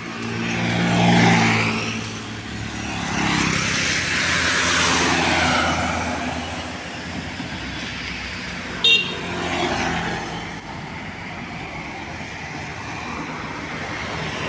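Road traffic passing close by: a vehicle engine running low near the start, then vehicles swelling past in waves, with a short horn beep about nine seconds in.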